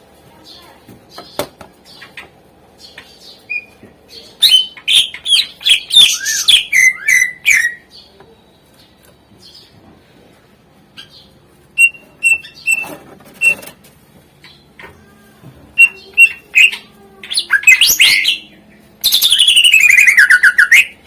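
Cucak ijo (green leafbird) singing in bursts of varied whistled notes and chirps, a song full of mimicked fills. Near the end comes a fast run of notes sliding down in pitch.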